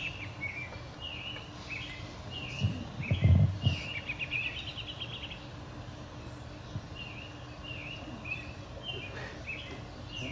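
Songbirds chirping in the trees: short chirps repeated over and over, with quick trills twice. About three seconds in, a brief low rumble is the loudest sound.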